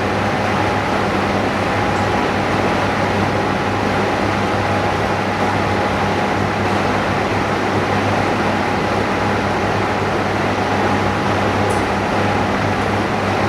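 Steady droning machine noise with a constant electric hum, as from a motor or pump running in the screen-refurbishing workshop, with a couple of faint light ticks.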